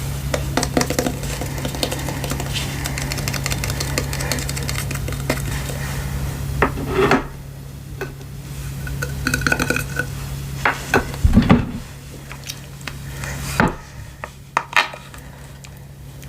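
Hands working a sticky slime-like putty, giving irregular crackles, clicks and squishes, with a few sharper knocks in the second half. A steady low hum underlies the first half and stops about seven seconds in.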